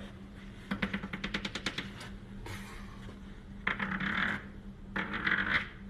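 Chalk on a chalkboard making a dotted line: a fast run of sharp clicks, about ten a second, then two shorter, scratchier rattling runs near the end.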